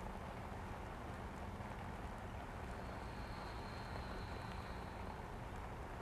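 Quiet steady background hiss and low hum of the room, with a faint high whine from about three to five seconds in.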